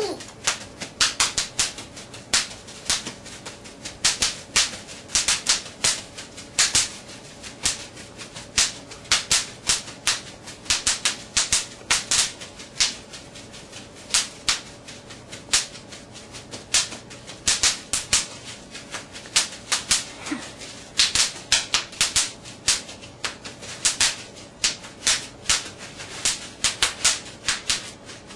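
Bubble wrap popping: sharp pops in quick irregular clusters, several a second, with short pauses between runs.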